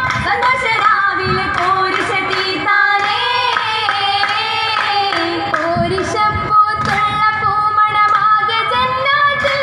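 Female voices singing a Mappila oppana song, a melody carried by the group of singers.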